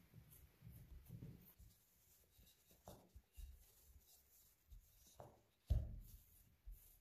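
Faint rubbing of hands pressing dough flat, then a wooden rolling pin rolling dough out on a floured stainless-steel worktop, with a few soft strokes. The loudest sound is a dull thump a little before six seconds in.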